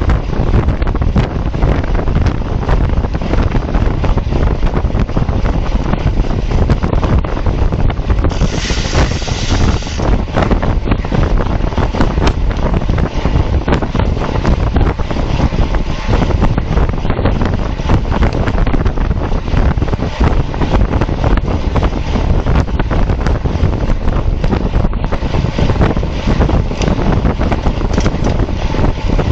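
Wind buffeting a bicycle-mounted camera's microphone at racing speed: a loud, steady rumble with small clicks all through, and a brief hiss about nine seconds in.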